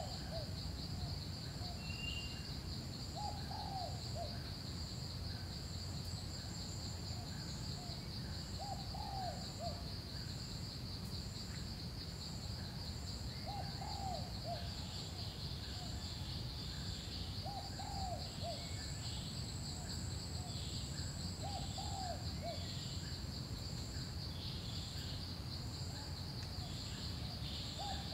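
Forest ambience: insects drone steadily, with a second higher insect pulsing about twice a second, while a bird repeats a short low call of a few notes every four to five seconds.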